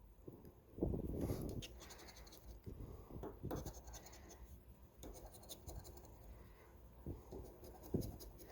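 Scratching the coating off a paper lottery scratch-off ticket in short, irregular strokes, the strongest about a second in.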